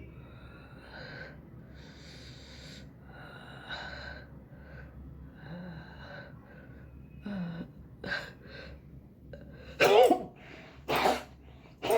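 A person breathing in short gasps, then sneezing loudly three times about a second apart near the end, the first sneeze the loudest.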